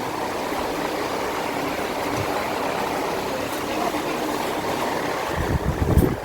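Heavy rain falling in a steady hiss. About five seconds in, wind starts buffeting the microphone with a low, gusty rumble.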